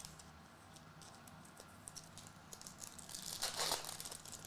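Foil trading-card pack wrapper crinkling and being torn open, loudest for about a second near the end, with faint clicks of handling before it.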